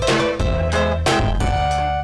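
Norteño band playing loud and amplified, with no singing: a sustained accordion melody over bass and a steady drum beat.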